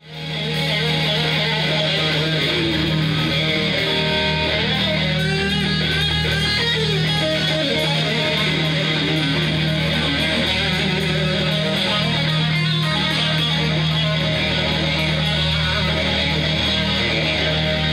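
Live blues-rock trio playing: a Stratocaster-style electric guitar leads over bass guitar and drums. The music fades in at the start.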